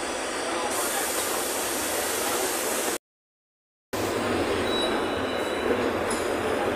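Steady running noise inside a moving city bus: engine and cabin rattle as it drives. The sound cuts out completely for about a second partway through, then resumes.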